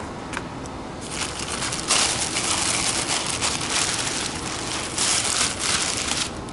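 A synthetic car cover crinkling and rustling as it is pulled over a car. The rustling starts about a second in, grows louder a second later, and goes on for about five seconds before stopping.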